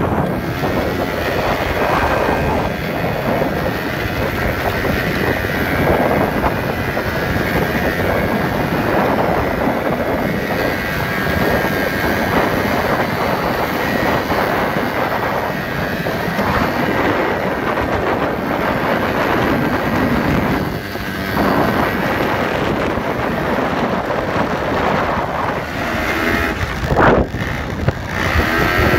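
ATV engine running steadily while riding over sand dunes, with wind noise on the microphone. One sharp knock near the end.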